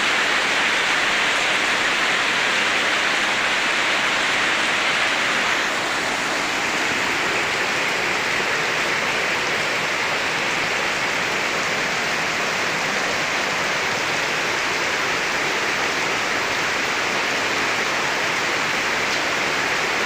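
Steady rain pouring down, an even rushing hiss that eases slightly about six seconds in.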